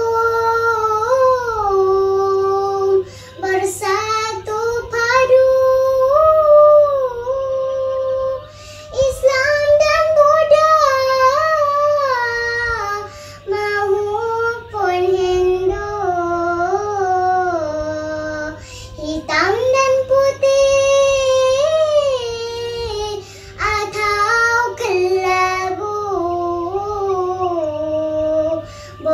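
A young girl chanting a Malay syair solo, in long held sung lines whose melody rises and falls, with short breaks for breath between each line.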